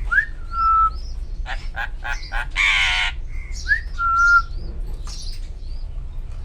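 Pet myna calling: two whistles, each rising and then holding level, about three seconds apart, with quick clicks, chirps and a harsh rasping call between them.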